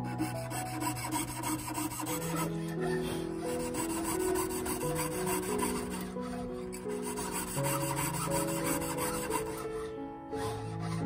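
Needle file rasping against a brass plate in rapid repeated strokes, smoothing the edge of a small pierced opening. Background music plays underneath.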